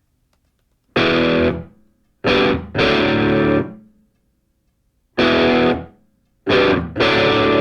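Background music: distorted electric guitar chords struck and left to die away, with short silences between them, starting about a second in.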